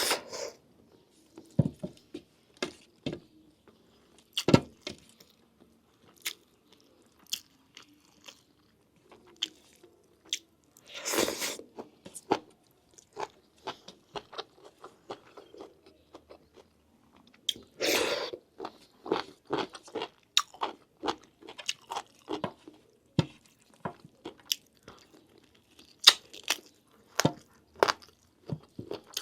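Close-miked mukbang eating: wet chewing, biting and mouth clicks as lamb meat is eaten off the bone, in many short irregular bursts. Two longer, louder noisy sounds come about eleven and eighteen seconds in.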